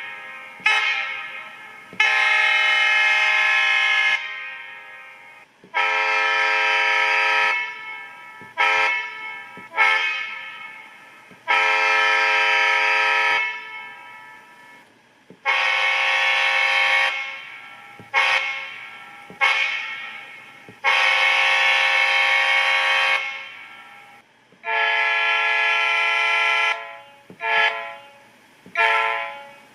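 Diesel locomotive air horn reproduced by a TCS WOWSound V4 model-train sound decoder: a multi-note chime sounded over and over. About two-second long blasts alternate with pairs of short toots, and each blast fades out rather than stopping dead.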